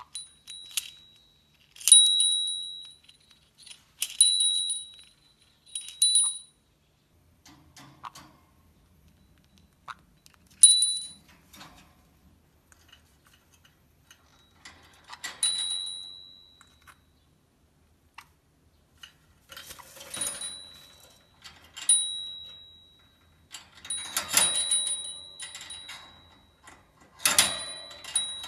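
A small stainless steel bird-toy bell rung again and again by a conure's beak knocking its ball clapper: about a dozen bright, high dings at irregular intervals, each ringing briefly and fading. Scratchy clatter comes in among the later strikes.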